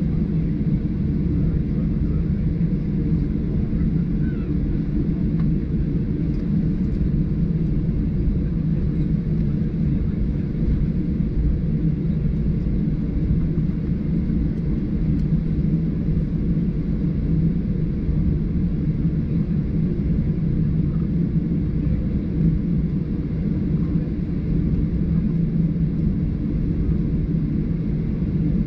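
Steady low rumble of engine and airflow noise inside a Boeing 737-800's cabin, even throughout with no changes in pitch or level.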